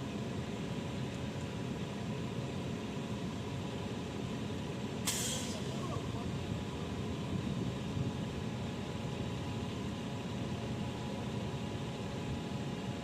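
Heavy diesel engine of a concrete truck running steadily, with a brief sharp hiss of released air, like an air brake, about five seconds in.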